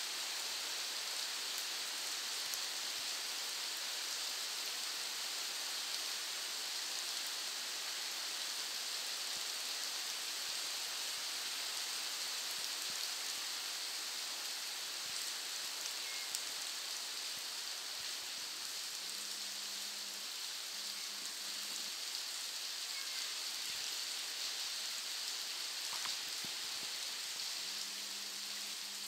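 Steady rainfall: an even hiss of rain with scattered individual drops ticking through it.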